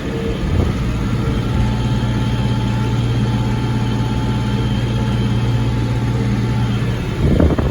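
Ford 7740 tractor's diesel engine running steadily at about 2,000 rpm under way in sixth gear.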